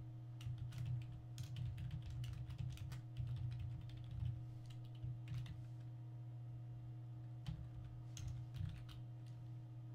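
Typing on a computer keyboard: a quick run of keystrokes for about five seconds, then a few scattered taps, over a steady low hum.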